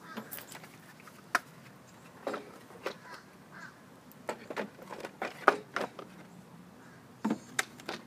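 Irregular plastic clicks and knocks as a Craftsman recoil starter housing is handled and test-fitted over a Briggs & Stratton mower engine, busiest in the middle, with the loudest knock a little past halfway and two quick ones near the end.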